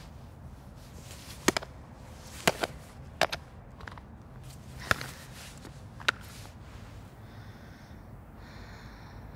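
High-heeled shoes stepping on a pavement: five sharp clicks, about a second apart, over a low steady background hum.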